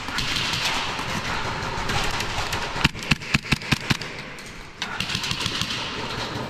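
A quick string of about seven sharp airsoft gun shots over roughly a second, about three seconds in, over a steady rustling hiss.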